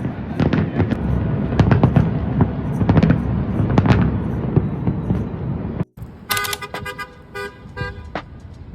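Fireworks going off in rapid cracks and booms over a heavy rumble. After an abrupt cut, car horns honk in several short toots.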